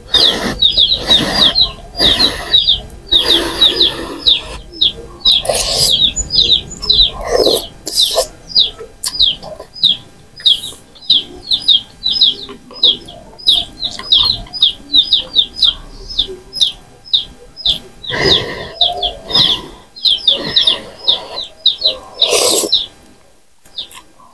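A bird chirping over and over, about four quick chirps a second at a steady rate. Louder, irregular close-up eating noises cut across it: slurps and clinks of a spoon and fork on a bowl of noodles.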